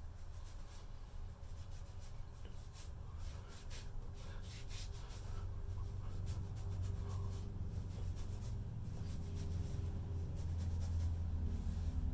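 Fingers rubbing oil through a long, thick, coarse beard and the skin beneath it, giving an uneven scratchy rustle of hair. Underneath is a steady low hum.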